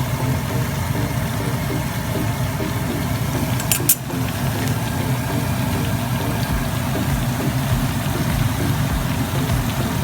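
Banana cue frying: saba bananas cooking in hot oil with sugar, a steady low bubbling and sizzling. A short sharp clink a little before four seconds in.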